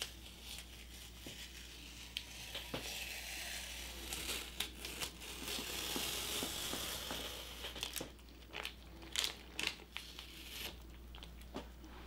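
Masking tape being peeled off the edges of a freshly epoxy-coated toilet tank lid: faint crinkling and tearing for most of the time, then a few soft clicks and rustles of gloved hands handling the lid near the end.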